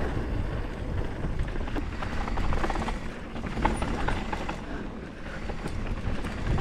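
Mountain bike descending a dusty dirt trail through berms: a steady low rumble of tyres on dirt, with scattered clicks and rattles from the bike, as picked up by an action camera riding along.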